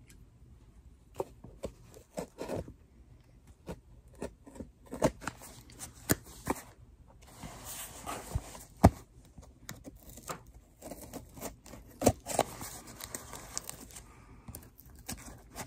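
Heavy-duty packing tape being picked at and torn from a cardboard shipping box, in short irregular rips and scratches with a few sharp knocks.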